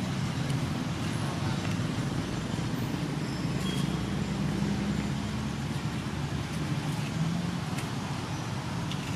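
Steady low background rumble of outdoor ambience, like distant traffic, with a few faint ticks.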